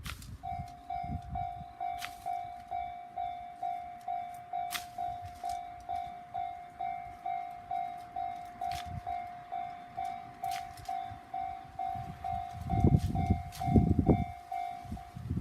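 Railway level-crossing alarm ringing: a single mid-pitched ding repeated steadily about twice a second. Near the end a train arrives at the crossing, its wheels rumbling and clattering under the bell.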